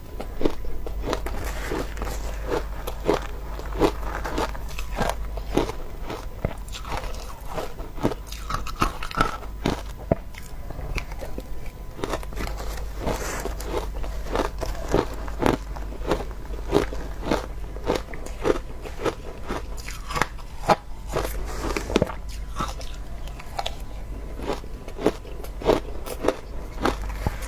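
A person biting and chewing crunchy shaved ice in a steady run of sharp crunches, about one or two a second. A low steady hum runs underneath.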